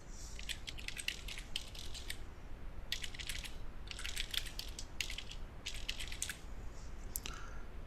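Computer keyboard typing in several quick bursts of key clicks, as an email address is entered.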